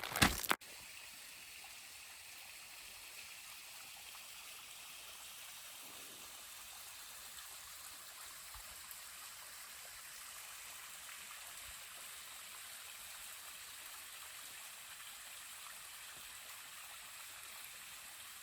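Small desert waterfall running as a thin trickle: a steady, even hiss of falling water. A few loud crunches come in the first half second.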